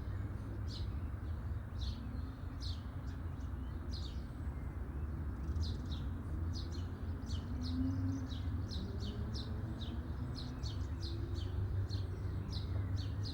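Small birds chirping: many short, high chirps, a couple each second, over a steady low rumble.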